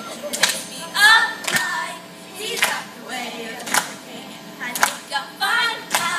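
Youth glee club singing in short phrases over sharp percussive hits that come every second or so.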